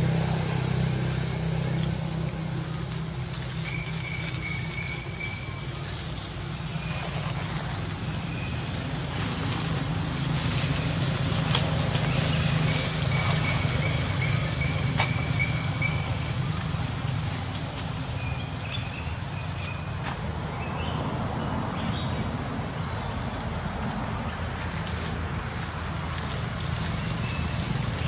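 Forest-floor ambience: a steady low rumble with scattered rustles and snaps of dry leaf litter and undergrowth, and a few short, thin whistled calls about 4 s, 13 s and 20 s in.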